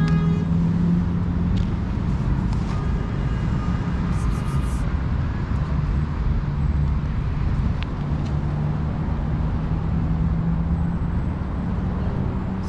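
Steady low rumble of traffic, with a constant engine hum.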